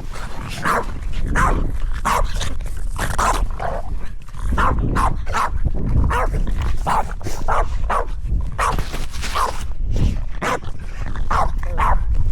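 A dog barking over and over, about two barks a second, with a short pause around four seconds in.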